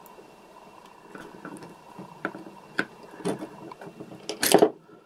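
Pliers gripping and twisting a small plastic gear on a toy motor's shaft: scattered small clicks and creaks, a few sharper clicks, then a loud, brief rasping crackle near the end.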